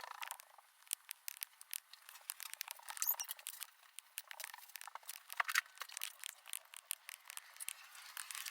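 Many quick, irregular small clicks and taps, a few louder than the rest.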